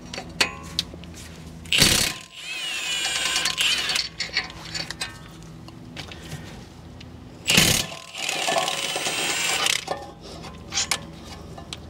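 Milwaukee M18 Fuel half-inch cordless impact wrench removing two 21 mm brake caliper bracket bolts. Each starts with a short, loud burst of hammering as the bolt breaks loose, then the motor whines for about two seconds as it spins the bolt out. The first comes about two seconds in and the second about seven and a half seconds in.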